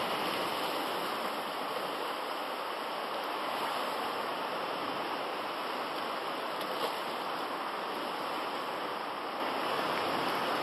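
Steady hiss and wash of sea surf against a rocky shore, even and unbroken.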